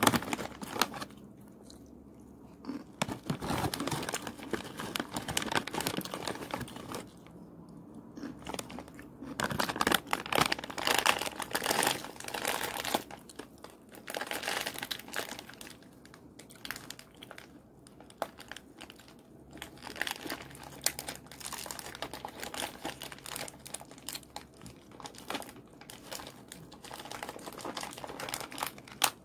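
Plastic snack bag crinkling as it is handled, and a crunchy snack being bitten and chewed, in irregular bursts with short quiet gaps.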